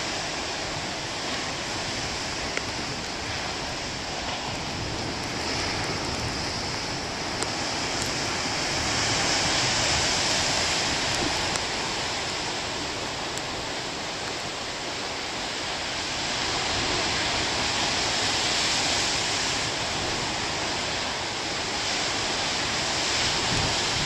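Large ocean waves breaking on a rocky shore, a continuous rush of churning white water that swells louder twice, about ten and eighteen seconds in.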